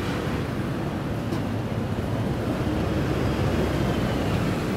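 Steady low roar of a high-pressure gas wok burner.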